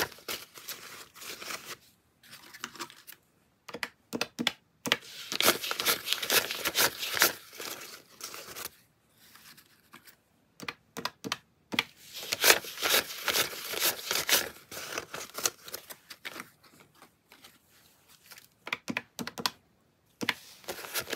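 Paper banknotes rustling and snapping in bursts as a stack of bills is counted through by hand and laid into piles. Plastic calculator keys are tapped near the end.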